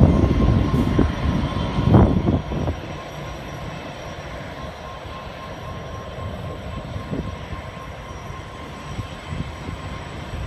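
82 class diesel-electric locomotives idling: a steady drone with a faint constant whine. The first two or three seconds carry a louder, irregular low rumble, which then drops away to the steady drone.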